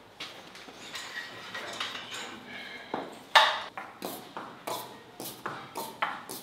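Slow footsteps on a hard floor: a sharp step about every half second, starting about three seconds in, the first one the loudest.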